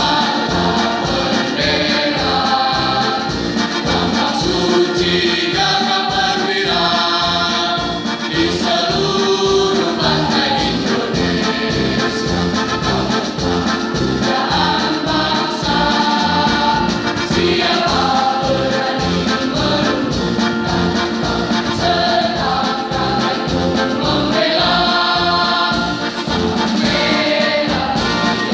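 School choir singing an Indonesian patriotic song in long held notes, accompanied by an electronic keyboard with a steady beat.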